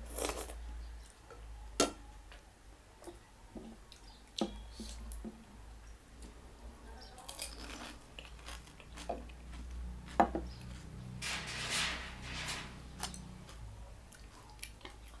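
Eating sounds: cutlery clinking against a dish in a few sharp strikes, the loudest about ten seconds in, with quieter chewing between.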